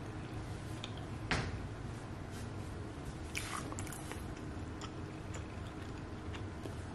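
A person biting into and chewing a slice of chocolate-chip banana bread with a crispy crust: one short sharp sound about a second in, then a softer rustle and quiet mouth sounds.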